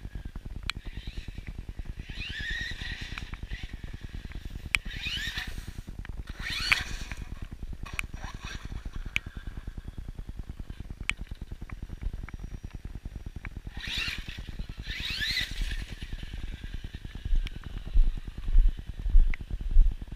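Axial Yeti XL RC truck's electric motor and drivetrain whining, the pitch rising and falling as it speeds up and slows in several bursts, with scattered clicks. Near the end, regular low thumps come about twice a second.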